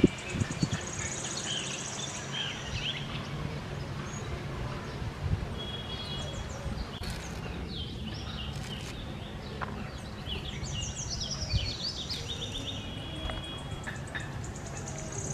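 Birds calling: repeated high, rapid trills and short chirps over a steady low hum. A few soft cuts come from fresh coriander being sliced against the blade of a boti.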